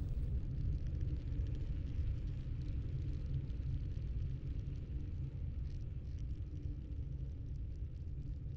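A steady, low ambient rumble from a sound-design drone, with a faint hiss and crackle above it.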